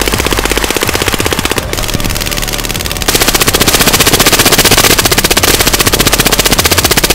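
AR-style rifle firing rapidly on automatic, an even run of shots roughly ten a second, getting louder about three seconds in.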